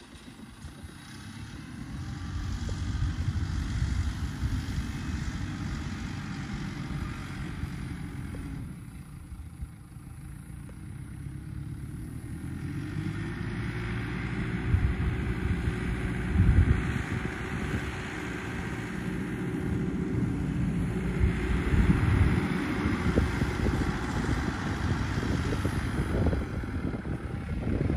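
Tractor engine running as the tractor carries a round hay bale on its front loader across the field, growing louder as it comes closer. Wind buffets the microphone throughout.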